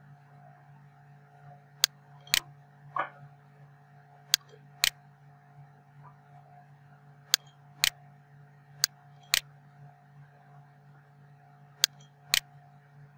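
Computer mouse clicking: five pairs of sharp clicks, the two in each pair about half a second apart, over a steady low hum.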